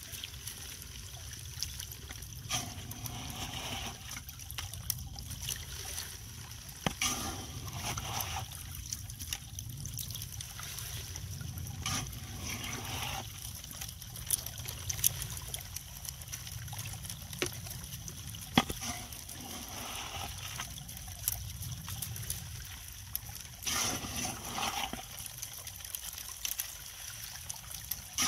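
Shallow creek water trickling slowly through a small gold sluice box, with a few sharp clicks scattered through it.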